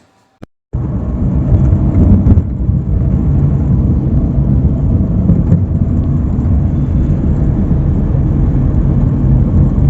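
Steady, loud low rumble of a moving road vehicle, engine and road noise, starting abruptly about a second in.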